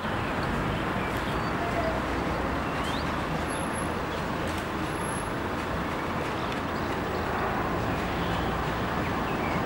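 Steady urban background noise: a low, even hum of distant road traffic.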